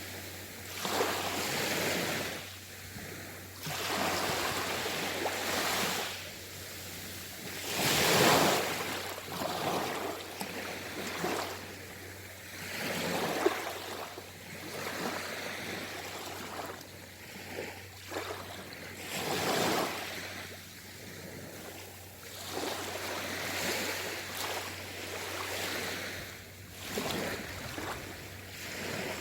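Sea waves surging in and washing back, one swell every few seconds, the loudest about eight seconds in.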